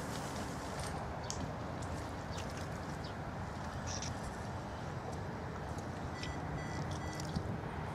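Steady outdoor background noise with scattered faint clicks, and a quick series of short high-pitched notes a little after the middle.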